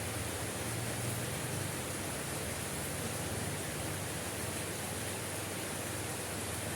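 Steady heavy rain: a dense, even hiss with a low rumble underneath.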